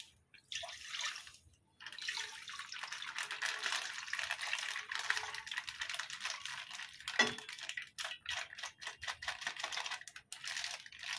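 Packet milk being poured into a metal kadai holding a little water, splashing steadily. Near the end it turns to short drips and spatters as the last of the milk is squeezed from the plastic packet, with one sharp click along the way.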